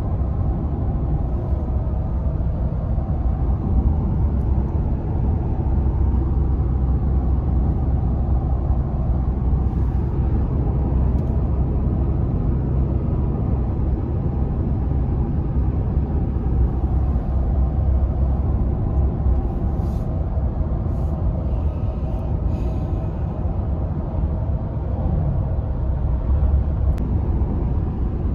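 Steady low road and engine rumble inside the cab of a moving pickup truck, with a few faint clicks about twenty seconds in.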